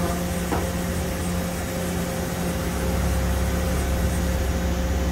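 Haas VF-3SS CNC vertical machining center running with a steady electrical hum as its table traverses along its axis, getting slightly louder about three seconds in.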